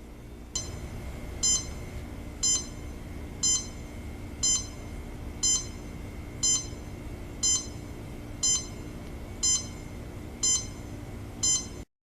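Timex T128 alarm clock's alarm beeping: one short, high electronic beep about every second, about eleven times, then the sound cuts off abruptly.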